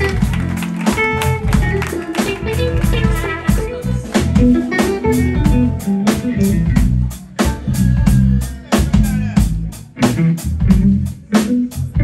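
Live jazz band playing: electric guitar lines over electric bass, a drum kit keeping a steady cymbal beat, and keyboards.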